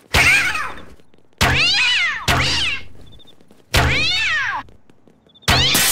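Cartoon cat launcher firing cats one after another: five sudden launches, each a thunk followed by a cat's screeching yowl that wavers and falls in pitch.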